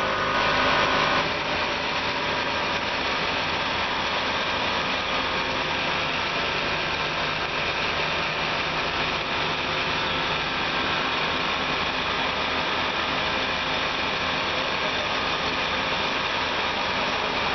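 UG-300 universal biomass gasifier plant running: a steady mechanical whir and rushing noise. A higher whine drops out about a second in.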